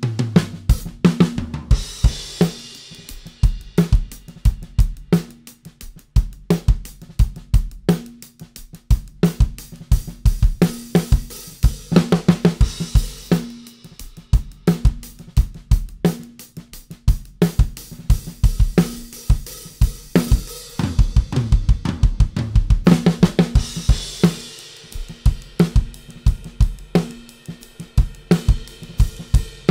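Acoustic drum kit played as a steady groove of kick, snare and hi-hat, with tom hits at the start and cymbal crashes about two seconds in and again near twenty-four seconds. It is recorded through LEWITT BEATKIT drum microphones: a DTP 340 REX on the kick, an MTP 440 DM on the snare and a pair of LCT 040 MATCH overheads.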